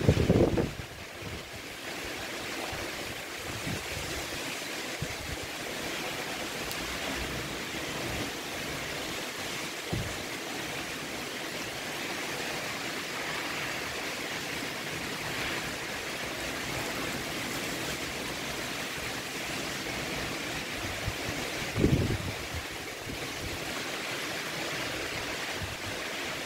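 Heavy rain falling steadily, an even hiss of a downpour. Two brief low bumps stand out, one at the very start and one near the end.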